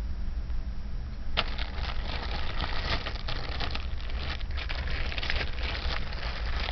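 A bag being handled and opened, its material crinkling and rustling in a quick, irregular run that starts about a second and a half in, over a steady low hum.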